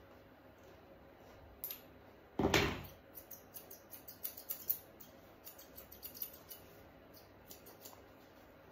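Small grooming scissors snipping through matted dog hair in a run of quick, light clicks, with a short louder bump about two and a half seconds in.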